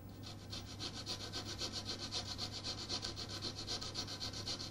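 Fine rasp filing the cellulose acetate of a spectacle frame around a newly sunk hinge, in rapid, even back-and-forth strokes, smoothing the rough or burnt plastic left by the heated hinge.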